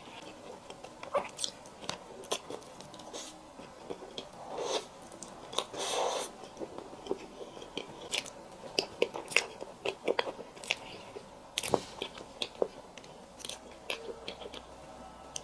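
Close-miked eating: a person biting and chewing food, with many small sharp mouth clicks and crunches.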